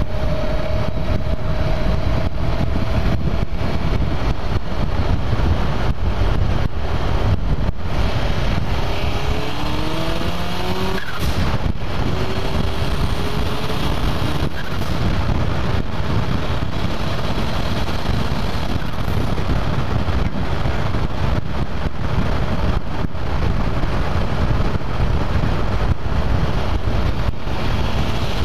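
Rabtech-turbocharged engine pulling while the vehicle drives along the road, heard from a hood-mounted camera with heavy road and wind noise. About nine seconds in, the engine pitch climbs twice as it revs up.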